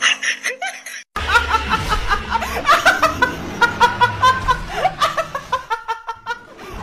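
A young woman laughing hard in rapid, high-pitched bursts, starting suddenly about a second in.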